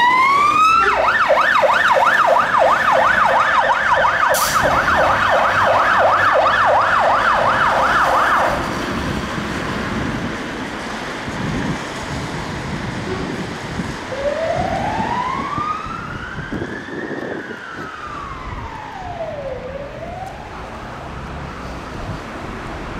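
Fire engine siren on a 2007 Scania water ladder: a rising wail switches to a fast yelp, about three or four sweeps a second, which stops suddenly after about eight seconds. Over traffic noise, a fainter slow wail then rises and falls once as the engine moves away.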